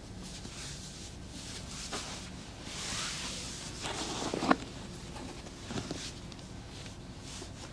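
Soft rustling of hands working over skin and clothing during a massage, with one sharp crack about halfway through and a few lighter clicks.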